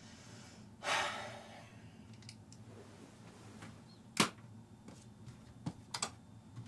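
Quiet small-cabin sounds: a short rustle of bedding about a second in, then a single sharp click about four seconds in as the cabin light is switched off, followed by a few fainter clicks near the end.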